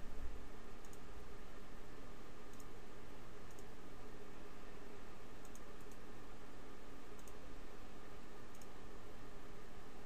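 Computer mouse buttons clicking, about eight faint, scattered clicks with three in quick succession about five and a half seconds in, over a steady hum and hiss.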